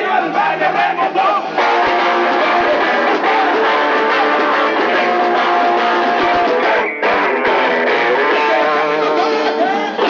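A live band playing, with electric guitar to the fore. The full band sound fills out about a second and a half in, drops out briefly around seven seconds, and stops at the end.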